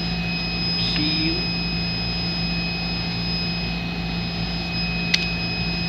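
Steady machinery drone of laboratory equipment, a constant low hum with two thin high whining tones over even noise. A single sharp click about five seconds in.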